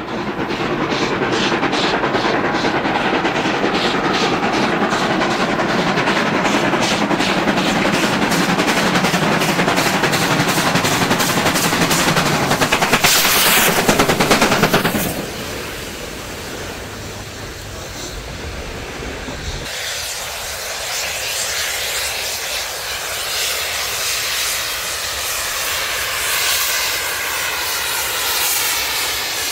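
Two steam locomotives double-heading a train and working hard: a rapid, even beat of exhaust chuffs that swells to its loudest just before the middle and then falls away. Later comes a quieter, steadier rush of exhaust and steam.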